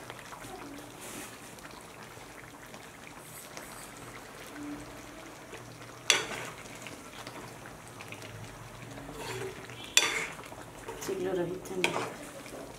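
Chicken-leg gravy simmering and sizzling in a metal wok on a gas stove, a steady hiss. A metal spoon knocks sharply against the pan twice, about six and ten seconds in, and stirs it near the end.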